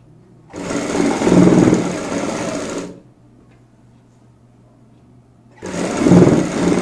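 Sewing machine stitching a waistband seam through cotton fabric in two runs. It starts about half a second in and runs for roughly two and a half seconds, stops while the fabric is repositioned, then starts again near the end.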